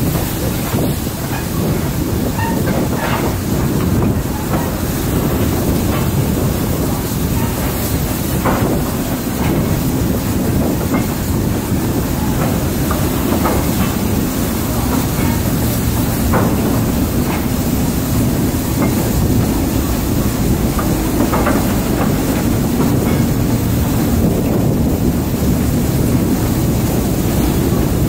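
A goods train of old wagons rolling slowly past: a steady rumble of wheels on the rails, with a few short clicks and squeaks from the running gear scattered through it.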